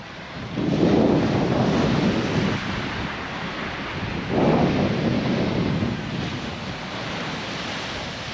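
Wind blowing across the microphone over the wash of surf, swelling louder twice, about a second in and again about four seconds in.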